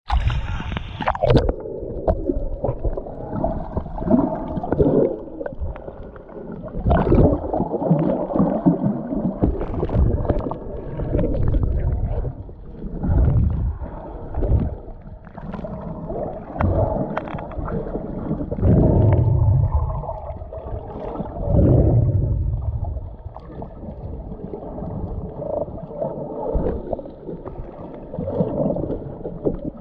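Shallow seawater heard underwater: muffled sloshing and gurgling that swells into low rumbles every few seconds as the water moves. The first second or so is brighter, with splashing at the surface before it goes under.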